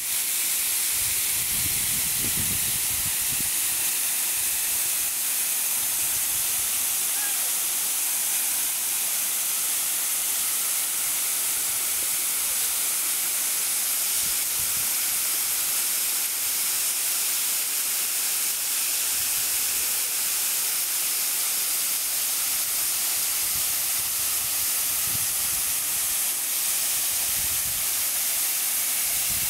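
Waterfall cascading down a rock face into a pool: a steady, even hiss of falling and splashing water, with a few brief low rumbles near the start and toward the end.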